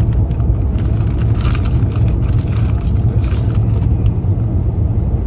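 Steady low rumble of road and engine noise inside a moving car's cabin, with a few brief rustles of a chip bag in the middle.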